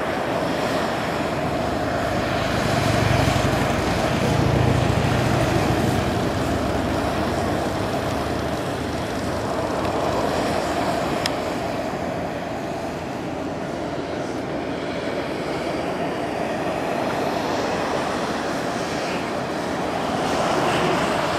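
Boiling hot spring churning and surging at its vent, a steady rushing, bubbling noise. A low rumble swells a few seconds in.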